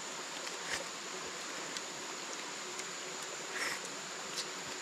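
Steady, high-pitched drone of forest insects over an even hiss, with a few faint short clicks.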